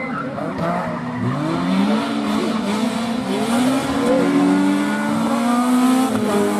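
Rally car engine running hard on a special stage: its pitch drops about a second in, then climbs steeply as it accelerates, with further rises and falls through gear changes.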